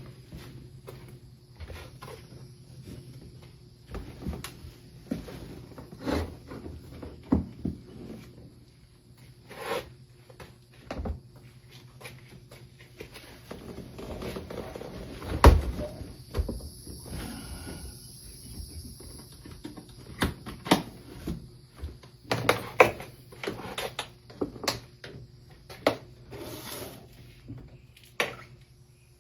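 Engine parts being unpacked from a cardboard box: scattered knocks and clunks as pieces are handled and set down, with rustling and one heavy thump about halfway through.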